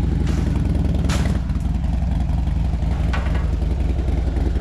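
Motorcycle engine running steadily at low revs as the bike is ridden up a trailer ramp, with a few brief clatters over it about a third of a second, a second and three seconds in.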